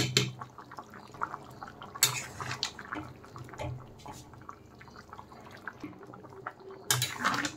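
Thick curry of chickpeas, paneer and potato simmering in a pot, its bubbles plopping and popping irregularly. A louder noisy stretch comes about two seconds in and again near the end.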